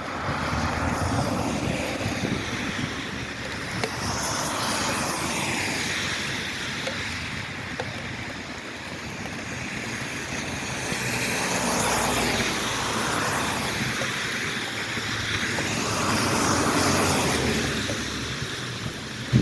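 Traffic on a rain-soaked road: tyre hiss that swells and fades several times as vehicles go by.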